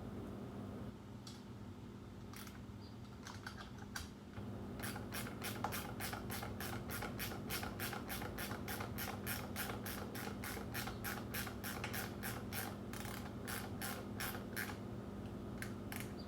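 Hand ratchet wrench clicking in a long, even run of about four clicks a second, after a few scattered clicks, as a fastener is turned during carburetor reassembly on a small engine. A steady low hum runs underneath.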